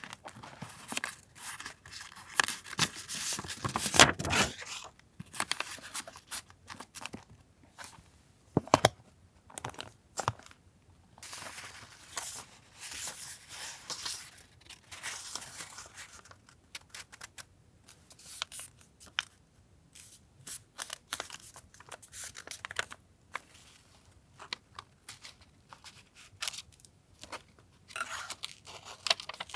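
Paper being handled for collage journaling: tearing, crinkling and snipping, with many small clicks and taps in irregular spells. The loudest stretch of tearing is about four seconds in, and there is a single sharp tap a few seconds later.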